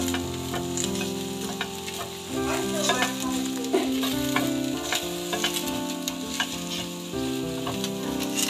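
Chopped shallots and lemongrass sizzling in oil in a stainless steel frying pan, stirred with a silicone spatula, with scattered crackles. Steady held low tones sit underneath and change every second or two.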